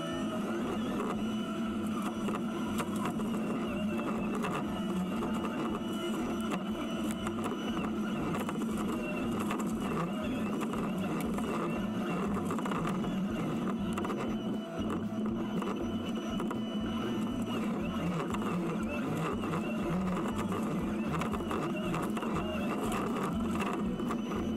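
Kubota SVL97-2 compact track loader's diesel engine running steadily under load as it drives a RUT Annihilator 60-inch disk mulcher, with a continuous fast clatter over the engine drone.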